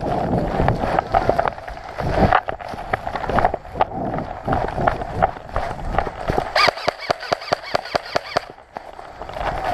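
Quick, even running footsteps of an airsoft player, with gear rustling.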